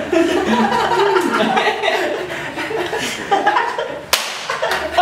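A group of men laughing loudly together, then a single sharp hand slap of a high five about four seconds in.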